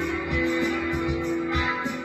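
Post-rock style jam: electric guitar through a NUX MG30 multi-effects unit, with held, effects-laden notes over a looped part and a steady drum-machine beat.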